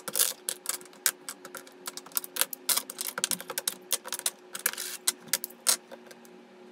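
Backgammon checkers clacking against each other and the board as they are picked up and stacked into the case's tray by hand: rapid, irregular clicks that stop about six seconds in.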